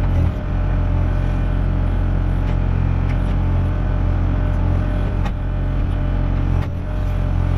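Kubota KX040 mini excavator's diesel engine running steadily under hydraulic load as the bucket grubs out stumps and roots, with a few sharp knocks through the digging.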